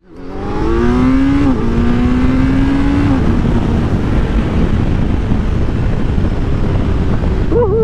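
Kawasaki Z900's inline-four engine through a LeoVince LV-10 slip-on exhaust, accelerating hard. The pitch climbs, drops at an upshift about a second and a half in, climbs again, then the engine tone fades into a steady rushing noise.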